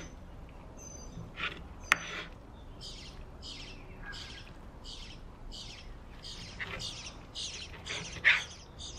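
Raw bacon slices being peeled apart and laid on a wooden cutting board: a run of short, wet, sticky sounds about two a second, with a sharp knock about two seconds in.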